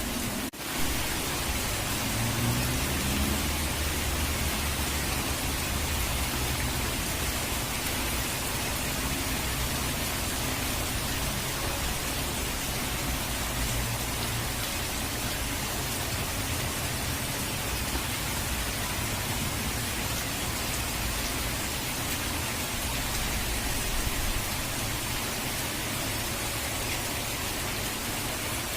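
Steady, dense rush of falling water with a low rumble underneath, cutting out for an instant about half a second in before carrying on unchanged.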